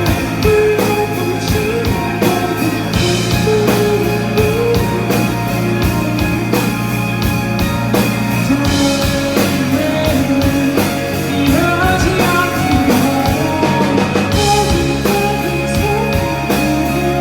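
Live rock band playing an instrumental passage, with electric guitar over bass and a drum kit.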